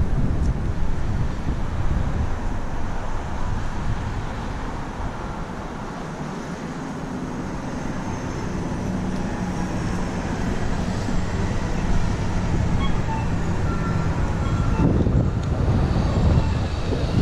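Wind buffeting a helmet-mounted camera on a moving bicycle, with traffic noise and a vehicle engine humming steadily through the middle stretch.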